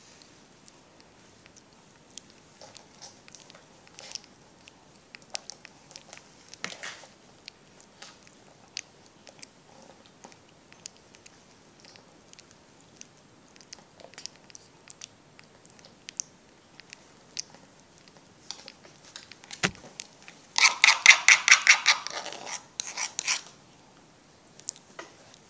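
Baby monkey licking and chewing food from a foil-lidded cup: a run of small, wet clicking mouth sounds. About twenty seconds in comes a loud burst of high, pulsed squealing lasting about three seconds.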